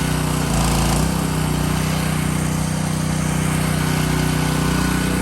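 Gas pressure washer's Honda 190 single-cylinder engine running steadily at a constant pitch.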